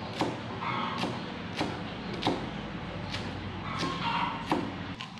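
Cleaver chopping green onions on a wooden chopping board: a series of separate knocks of the blade on the wood, about one every two-thirds of a second.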